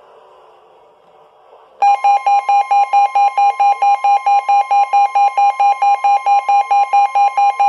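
Loud electronic emergency alert tone breaking into a TV broadcast about two seconds in: a steady high tone with a second, lower tone beeping about four times a second over it. It is the alert signal announcing a severe thunderstorm warning.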